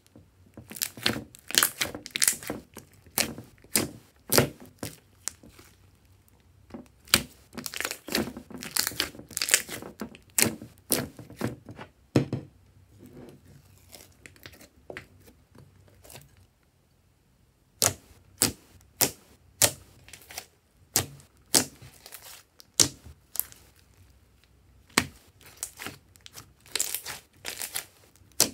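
Thick, glossy slime being stirred and then pressed and poked by hand, giving sticky crackles and pops. The crackles come thick and fast at first, thin out to a lull in the middle, then come back as separate pops, about two a second.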